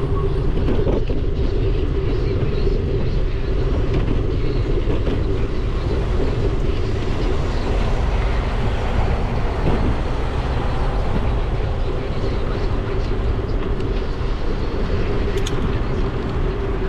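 Riding noise on a GoPro while cycling on a paved bike path: wind rushing over the microphone and tyres rolling, a steady low rumble with a constant hum.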